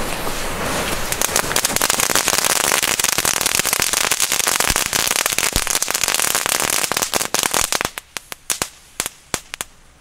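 A bundle of small 'Flashlight' youth fireworks going off together: a dense, rapid crackling of many small pops that thins to scattered single pops about eight seconds in.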